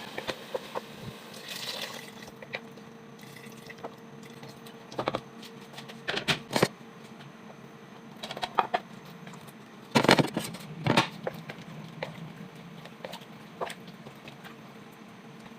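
Kitchen work sounds while cooking: a series of irregular knocks and clatters, the loudest cluster about two-thirds of the way through, over a steady low hum. There may be some water handling.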